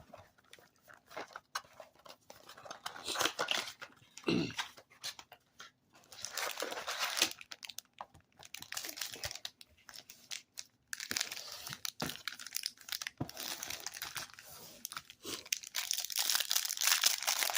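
Trading-card blaster box and its packs being opened by hand: plastic wrappers torn and crinkled in repeated bursts, with some crunching.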